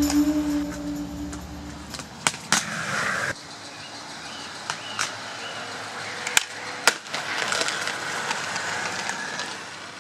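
Aggressive inline skates on brick and concrete: wheels rolling and scraping, with about five sharp knocks from landings and hits spread through the clip. The soundtrack music fades out during the first two seconds.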